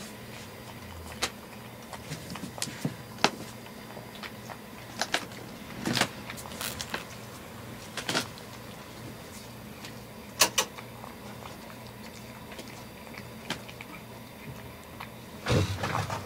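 Cat eating from a clear bowl: scattered sharp clicks and small knocks of chewing, licking and the bowl being nudged, with a louder cluster near the end, over a faint steady low hum.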